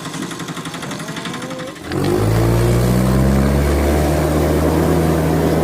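A fast, even rattling, then about two seconds in a much louder vehicle engine sound starts suddenly and runs steadily.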